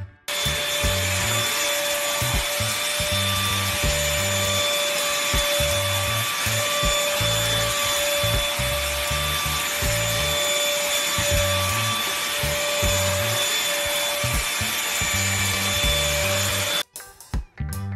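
Cordless handheld stick vacuum cleaner running steadily with a high motor whine while its nozzle is worked over a cat's fur. It starts just after the beginning and cuts off suddenly about a second before the end.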